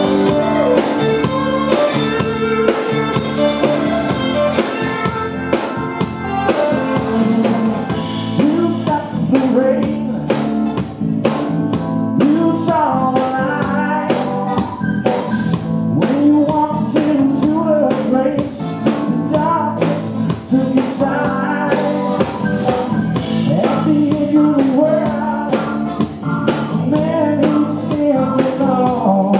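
Live blues-rock band playing: electric guitar over drum kit and bass, with a sung melody line.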